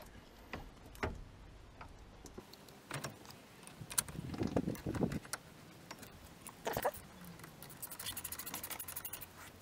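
Hand tools and metal brake parts being handled during a brake pad job: scattered clicks and knocks, a clattering spell about four to five seconds in, and a quick run of even ticks near the end.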